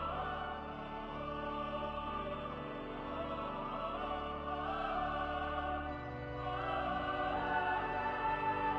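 Background music: choral, operatic singing with orchestra.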